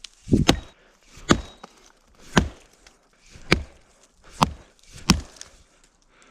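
An axe chopping into the trunk of a dead, rotted birch tree being felled: about six sharp strikes, roughly one a second, the first a quick double blow.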